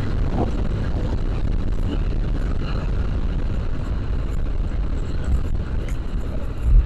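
Riding noise from a motorcycle at speed: a steady low wind rumble on a wireless collar microphone, with engine and tyre noise beneath it. A short low thump comes near the end.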